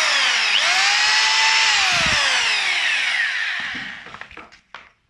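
Stanley 26 hammer drill's electric motor whining at speed. It dips briefly, spins back up, then runs down to a stop over about two seconds, followed by a few light clicks.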